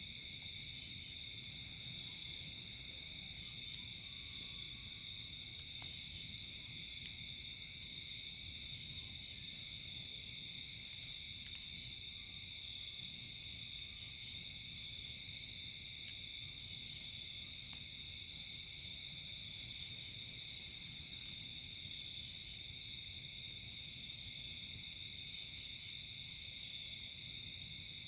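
A steady, high chorus of night insects, crickets among them, with further insect pulses every few seconds. There is a low rumble under it and a few faint pops from the crackling campfire.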